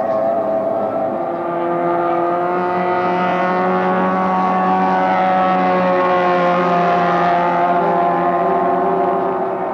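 Racing outboard engines of three-point hydroplanes running flat out as the boats race past, a steady high-pitched engine drone with more than one engine overlapping. The pitch bends slightly and the sound grows a little louder through the middle.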